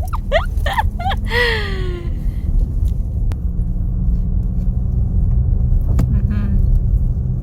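Steady low rumble of a car driving slowly, engine and tyres on a rough road. A voice briefly exclaims in the first two seconds, and there is a single sharp click about six seconds in.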